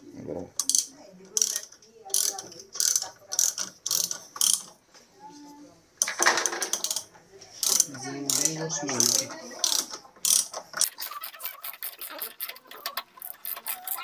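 8 mm socket ratchet wrench clicking in short bursts as it drives small screws into a refrigerator door hinge, easing off briefly about five seconds in, then a rapid run of lighter clicks near the end.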